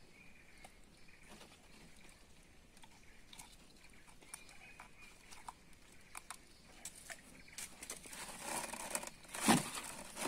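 Light clicks and rustles of a caught fish and fishing line being handled in a wooden canoe, growing into a louder scuffle near the end with one sharp thud.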